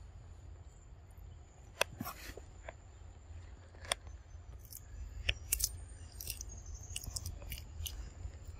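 A macaque biting and chewing a crisp green vegetable leaf: a series of sharp, irregular crunches and tearing snaps.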